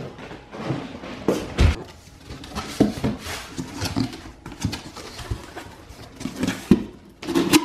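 A cardboard box being handled and opened: scattered rustling, scraping and knocking as its flaps are folded back, with one heavy thump about one and a half seconds in.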